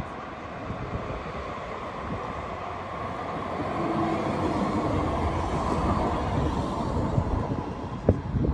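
Tram running past on its rails, growing louder through the middle, with a sharp knock near the end.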